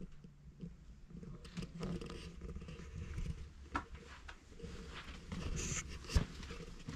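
Footsteps and scuffing on a floor littered with debris, with scattered light clicks and one sharp knock about six seconds in.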